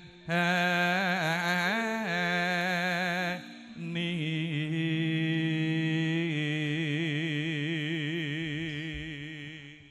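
A solo voice singing a slow Javanese tembang with long held notes and strong vibrato. There is a short break about three and a half seconds in, then one long held phrase that fades near the end.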